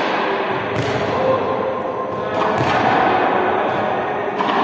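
Four sharp thuds, each with a short ringing tail, come at uneven intervals over a steady, busy background din.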